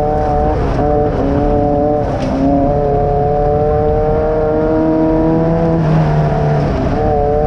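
Air-cooled VW engine of a Class 9 off-road race buggy running hard under load, heard from inside the car. Its pitch holds mostly steady, dipping briefly about a second in, again around two and a half seconds, and near the end.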